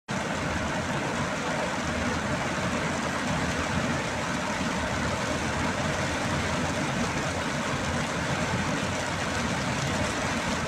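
Heavy rain on a car's roof and windscreen, heard from inside the moving car, together with the tyres on the flooded road: one steady, even hiss.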